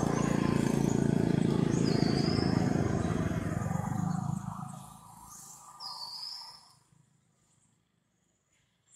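Low rumble of a passing motor engine that dies away from about four and a half seconds in. Two short descending bird chirps come about two and six seconds in.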